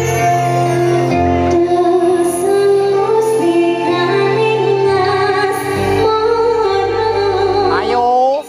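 Campursari band playing live, with a woman singing over the held instrument tones and a sliding vocal line rising near the end.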